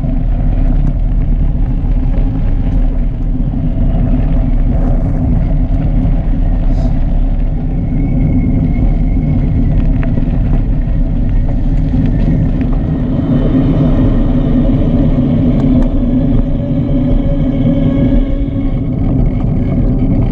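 Wind rushing over the microphone of a moving bicycle, with the steady rumble of its tyres rolling over a gravel track and then onto asphalt.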